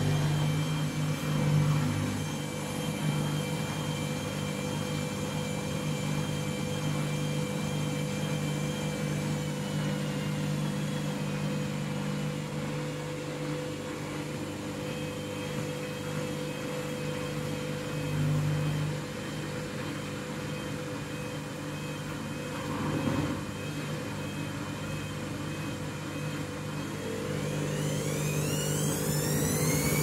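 Candy washing machine in its final spin: the motor and drum run with a steady hum and a light whine, with a couple of brief swells along the way. Near the end the motor's whine rises steeply and grows louder as the drum speeds up toward full spin speed.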